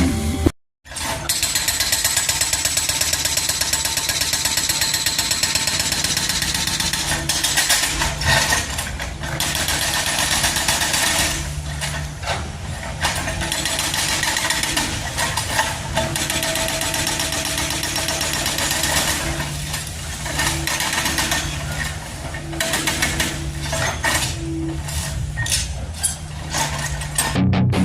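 Kobelco SK200 hydraulic excavator working: its engine runs steadily with a dense mechanical clatter over it. The sound drops out for a moment just after the start.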